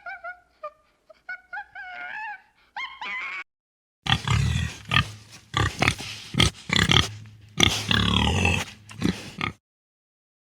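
Animal calls in two separate clips: first about three seconds of short, high-pitched whining chirps, then after a brief gap a louder run of rough grunts and squeals that cuts off abruptly near the end.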